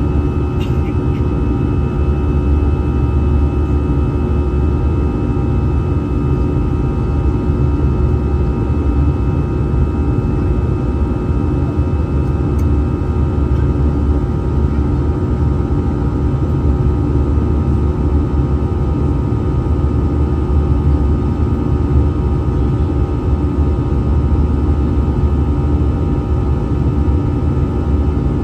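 Airbus A320-216's CFM56 turbofan engines heard from inside the passenger cabin in flight: a steady low roar with several steady whining tones above it. Two faint clicks come about a second in and near the middle.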